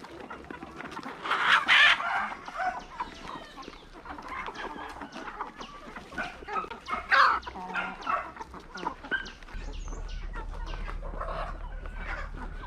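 A flock of chickens clucking, with short overlapping calls throughout and two louder calls, about a second and a half in and about seven seconds in.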